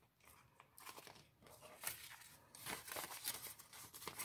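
Faint crinkling of a clear plastic binder pocket and rustling of a paper tracker sheet as it is slid into the pocket; sparse at first, then more frequent from about halfway through.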